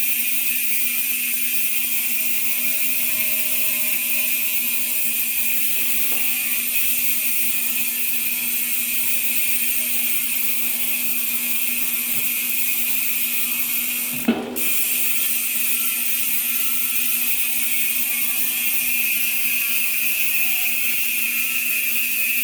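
Arc MT-009 rear hub freewheeling on a mountain bike, its pawls ratcheting in a fast, steady, high-pitched buzz. A single sharp knock comes about fourteen seconds in.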